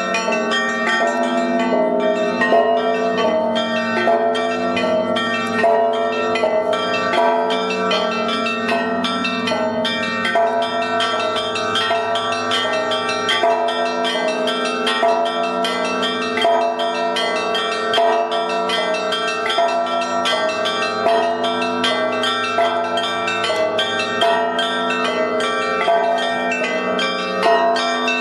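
Russian church bells rung in a continuous peal: several bells of different pitches are struck in quick succession, several strikes a second, over their own lingering ring.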